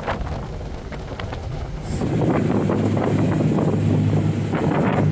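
Real 40 Cabriolet powerboat running underway: a steady engine drone under a rush of wind and water on the microphone. About two seconds in it turns louder and denser.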